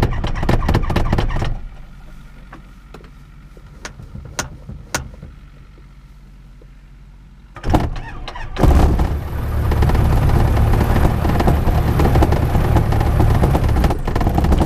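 Jodel DR1050's engine cranking on the electric starter in rapid, even chuffs for about a second and a half, then stopping without catching; a few sharp clicks follow. About eight seconds in it is cranked again, catches with a short burst and settles into running steadily.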